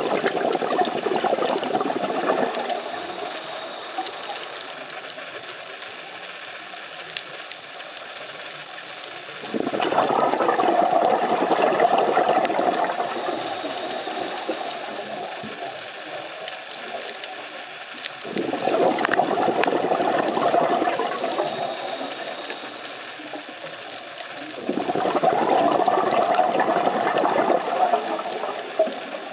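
A scuba diver's exhaled bubbles rushing out of the regulator in four breaths, each lasting a few seconds and coming about eight seconds apart. Faint fine crackling clicks fill the gaps between breaths.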